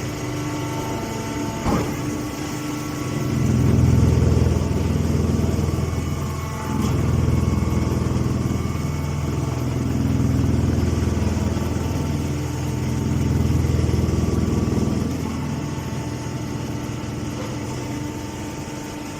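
Straw baler machine running: a steady engine hum that grows louder four times for a couple of seconds each, as if under load, with a sharp knock about two seconds in.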